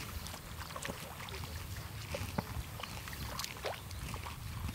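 Wading through a flooded rice paddy: legs sloshing and splashing through shallow water and soft mud in irregular steps, over a low steady rumble.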